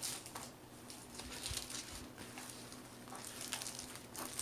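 Faint, scattered rustling and light ticks of plastic packaging being handled.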